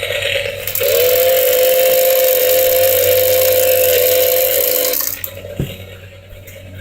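Toy chainsaw's electronic chainsaw sound effect from its small speaker: a brief hiss, then a steady buzzing tone with hiss for about four seconds, which stops about five seconds in, followed by a single click.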